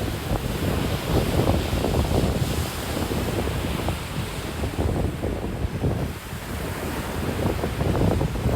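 Atlantic surf washing onto a beach, with wind buffeting the microphone in low gusts.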